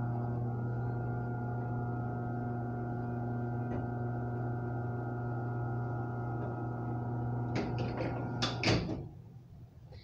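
Chamberlain WD832KEVG garage door opener running with a steady electric motor hum while it moves the door. A few knocks and clunks come near the end, and then the motor cuts off suddenly about nine seconds in.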